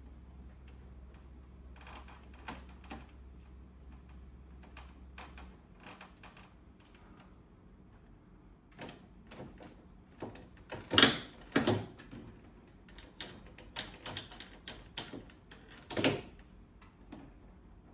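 Scattered plastic clicks and knocks as parts of an air conditioner's indoor unit are handled and fitted back together, with two louder knocks, one a little past the middle and one near the end.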